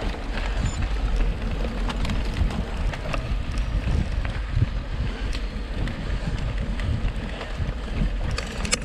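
Wind buffeting the microphone over a mountain bike riding fast on a rough gravel track, with scattered clicks and knocks of the bike rattling over the ground.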